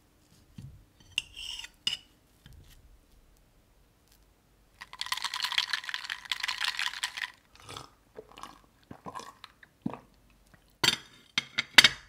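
Serrated knife and fork working through a roll cake and bun on a ceramic plate, with scrapes and clinks of metal on the plate and a longer stretch of scraping in the middle. Near the end, a glass mug of iced coffee is set down with sharp clinks of glass and ice.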